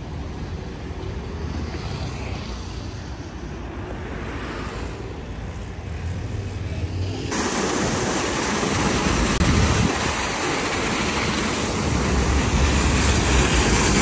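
City street traffic rumbling. About seven seconds in it gives way abruptly to a street fountain's water falling from tall spouts and splashing into a stone basin, a steady, louder rushing hiss.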